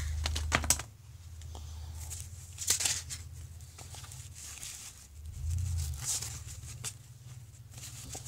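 Crinkling and crackling of a 1989 Topps baseball card pack's wax-paper wrapper being torn open and handled, in scattered short bursts with a few sharp clicks, over a low hum.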